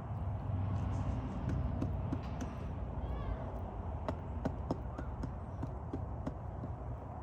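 A chicken sneezing over and over: short, sharp sneezes coming irregularly, with a brief call about three seconds in.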